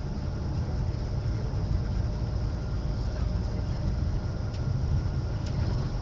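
Steady low rumble of engine and road noise inside a moving bus.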